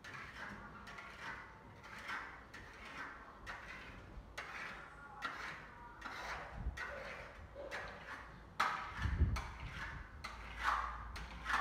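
Steel plaster knife scraping over Venetian plaster in short repeated strokes, about one or two a second, as the stone-effect finish is detailed. A dull low thump sounds about nine seconds in.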